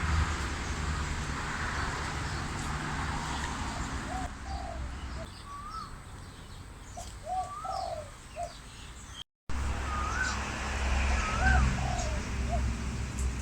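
Asian koel giving its rising-then-falling call four times, mixed with the low, repeated coos of a spotted dove, over steady low background noise. The sound cuts out for a moment about nine seconds in.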